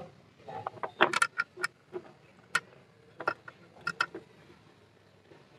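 Irregular sharp metallic clicks and light scrapes, clustered about a second in and then spaced out, as a spin-on hydraulic oil filter canister is handled and threaded by hand onto its mount on a Sonalika DI 35 tractor.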